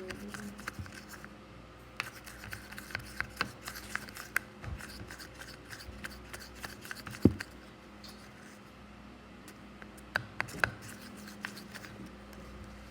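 Irregular light clicks and scratches of small objects being handled, with a sharper knock about seven seconds in.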